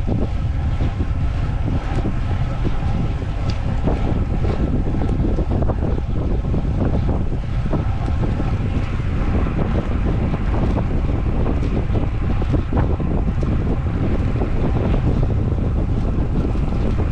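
Wind rushing over the microphone of a camera on a moving road bike: a steady low rumble with a few faint scattered ticks.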